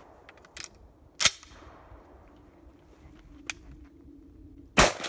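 Shotgun being readied and fired: a sharp metallic clack of the action closing on a shell about a second in, then near the end a single loud shotgun blast from a Federal Premium Gold Medal Grand clay target load, cut off abruptly.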